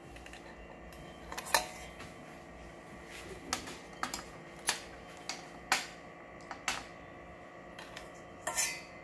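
Metal kitchen utensils clinking and tapping against a ceramic plate and a stainless-steel pot, about a dozen irregular clinks with the loudest about a second and a half in, over a faint steady hum.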